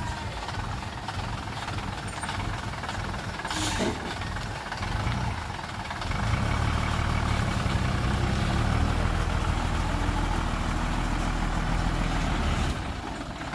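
Heavy diesel engine of earthmoving machinery running, growing louder and harder about halfway through and dropping back near the end.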